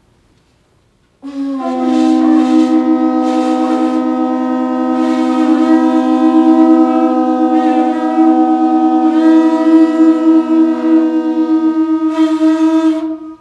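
Two conch shell trumpets blown together in one long, loud, steady blast at two different pitches. The lower horn stops shortly before the higher one, which cuts off near the end.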